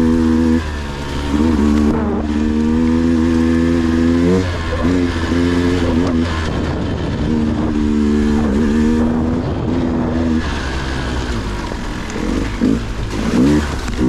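Dirt bike engine under way on a rough trail, revs held steady for a few seconds at a time, with throttle blips rising and falling in between and quick on-off throttle changes near the end.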